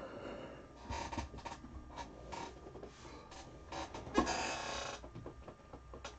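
Trading card boxes and packaging being handled on a table: a series of clicks and short rustles, with one louder crinkling rip about four seconds in.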